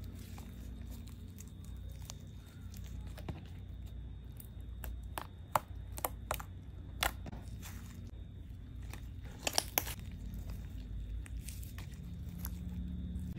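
Hands stretching, folding and poking soft butter slime: scattered sticky clicks and pops as air pockets in the slime are pressed out, with a quick cluster of sharper pops about two-thirds of the way through.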